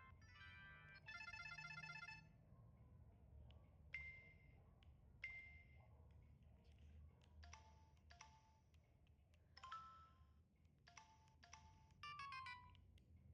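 Samsung SCH-A815 cell phone's speaker playing a short ringtone melody that cuts off about two seconds in, then a string of short electronic beeps, some in pairs, as its menu is stepped through, ending in a quick falling run of notes.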